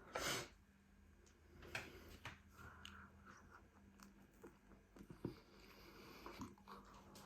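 Faint close-up chewing of food, with small wet mouth clicks, and one short sharp breathy noise just after the start.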